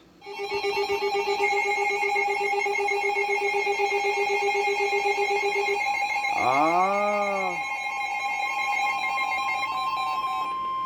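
Electronic emergency alert tones: a chord of steady, slightly warbling tones, then about six seconds in a brief swoop that rises and falls, after which a single steady tone near 1 kHz, the weather radio warning alarm tone, carries on to the end.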